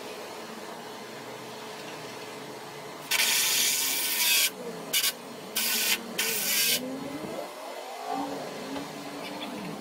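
Cordless drill-driver run in four short bursts, the first about a second and a half long and the rest briefly, driving screws into a board laid along the top of a log.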